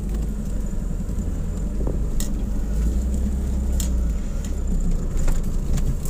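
Off-road 4x4's engine pulling at low revs, a steady low rumble heard from inside the cab while driving over a rough dirt track. There are a few sharp knocks and rattles as the vehicle bumps along, at about two, four and five seconds in.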